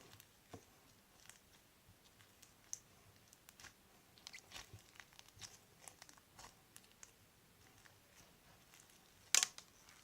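Crunchy slime full of small foam beads being squeezed and worked by hand, giving faint, scattered crackles and pops, with one louder pop near the end.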